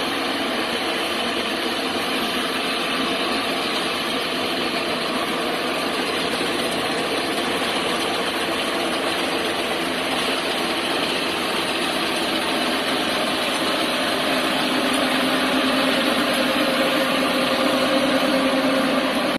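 Rice combine harvester running steadily, its engine and threshing machinery giving a constant mechanical din, with a humming tone that grows stronger over the last few seconds.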